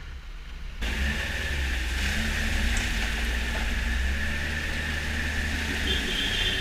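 Snowmobile engine running steadily. It starts abruptly about a second in, with a low rumble and a steady whine above it.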